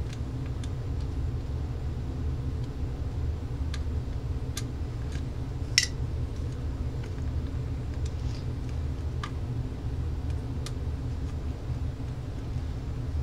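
Small clicks and taps of screws being handled and driven into the plastic rear cover of a cordless phone handset with a screwdriver, the sharpest about six seconds in, over a steady low hum.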